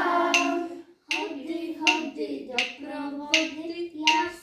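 A group of young children singing together, marking each beat with their hands: a sharp clap-like stroke about every three quarters of a second. The singing and beat break off for a moment about a second in, then carry on.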